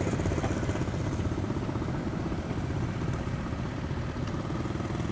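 Barge engine running steadily at low speed with a fast, even chugging.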